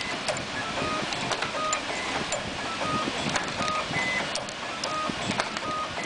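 WPM-09JE2 automatic wire cutting and stripping machine running through its cycle: short motor whines from the feed rollers and sharp clicks from the blades, repeating about every three-quarters of a second as it cuts and strips each length of wire.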